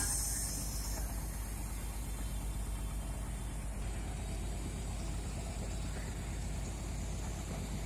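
Mobile crane's diesel engine running steadily with an even low throb as the crane lowers a suspended steel tank. A sharp hiss sounds in the first second, then stops.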